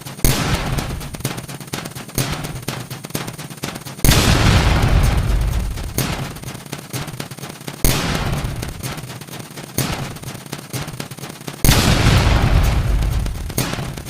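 US Emergency Alert System alarm sped up far beyond recognition, reduced to a dense crackle of clicks. Loud hissing bursts start suddenly about every two seconds and fade away, the loudest about four seconds in and again near the end.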